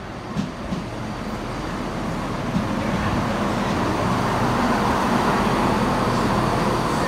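Diesel multiple-unit passenger train pulling into the platform and running close past as it slows. Its rumble grows steadily louder, with a few sharp clicks in the first seconds.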